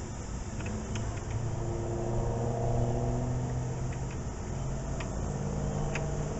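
A steady low engine hum that grows louder about a second in and keeps going, with a few light clicks over it.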